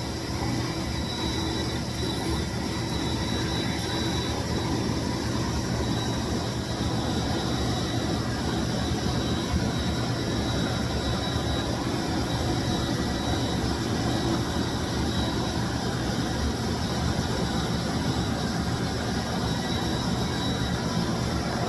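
1995 Bissell SC deep cleaning machine running steadily: an even motor rush with a thin, high whine held throughout.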